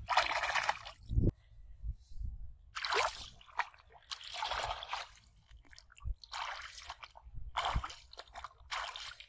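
Bare feet wading through shallow muddy water: a series of sloshing splashes, about one every one to two seconds.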